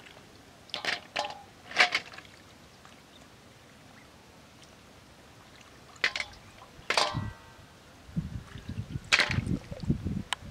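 Hands splashing in shallow river water while river snails are picked up and dropped into a metal basin: a handful of short splashes and shell clatters, one ringing briefly off the basin. A low rumble joins near the end.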